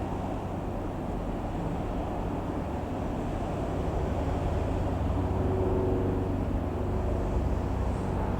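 Piper PA-28-161 Warrior's four-cylinder Lycoming O-320 piston engine running steadily with a low drone, a faint higher tone joining in past the middle.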